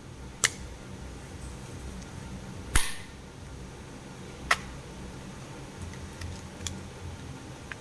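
Sharp clicks and snaps of a Kinder Surprise egg and its plastic toy capsule being handled and opened: three loud ones about two seconds apart, the middle one a slightly longer snap, then a few faint ticks, over a low steady hum.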